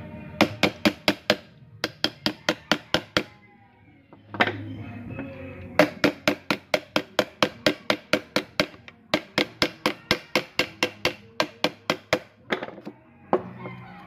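Rapid runs of sharp knocks, about five a second, as a PVC pipe is tapped and driven onto the fan housing to seat it tightly, broken by short pauses. Background music plays underneath.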